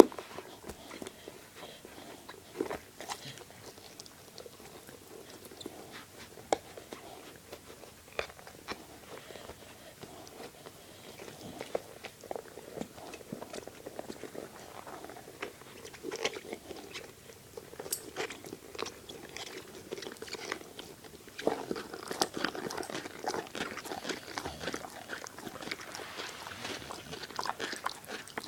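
A dog chewing and biting a squeaky ball toy: scattered crunches and clicks, turning into denser, steadier chewing about three-quarters of the way in.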